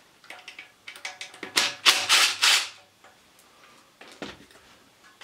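Cordless impact driver rattling in a few short bursts, about one to three seconds in, as it backs out an 8 mm bolt holding the magneto on a small Honda-clone petrol engine. A single dull knock follows about four seconds in.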